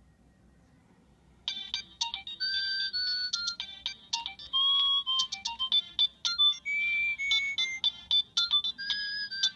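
Nokia 3586 mobile phone playing one of its built-in ringtones: a quick electronic melody of short, high beeping notes mixed with sharp clicks, starting about a second and a half in.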